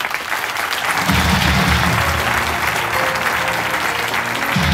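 Theatre audience applauding at the end of a stage act, over show music whose low bass notes come in about a second in.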